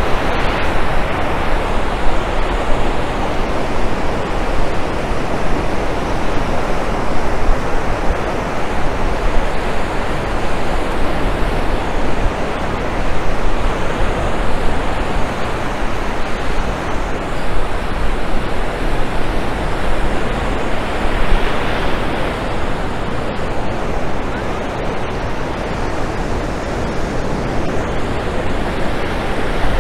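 Ocean surf breaking and washing up a beach, a steady rushing noise that swells about a second in and again about two-thirds of the way through.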